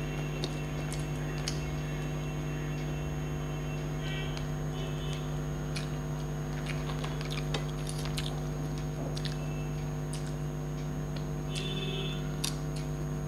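Fingers being licked and lips smacked after eating by hand: scattered small wet mouth clicks over a steady low hum, with a few short high chirps.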